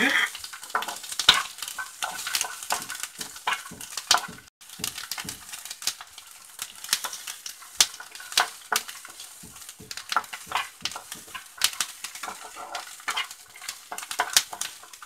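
Peeled garlic cloves frying lightly in a little oil in a metal pan, with a soft sizzle under them. A wooden spatula stirs them constantly, scraping and tapping against the pan in quick, irregular strokes.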